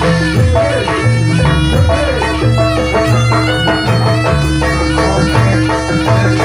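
Jaranan music: a shrill reed trumpet (slompret) plays a wavering melody over a steady held tone, with drums and gongs beating a steady rhythm underneath.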